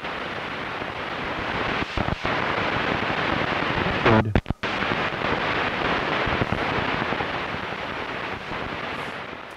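Spirit box radio scanner sweeping through stations: a steady hiss of static that cuts out briefly twice, with a short voice-like fragment about four seconds in that is taken for the word "dead".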